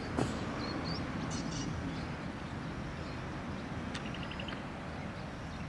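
Outdoor ambience by the pond: a steady low rumble with a few faint high bird chirps in the first second, and a short quick run of chirps about four seconds in.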